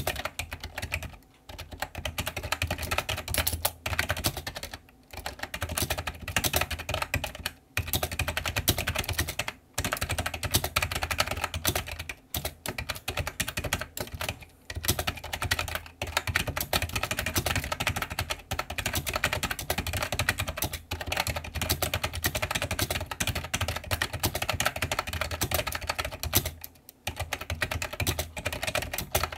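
Continuous typing on an iMAGiC G-Keyboard II Echo plunger-switch keyboard: a dense run of key clacks, broken by a few brief pauses.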